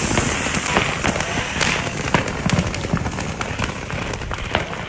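Fireworks going off, a dense run of irregular sharp pops and crackles several times a second.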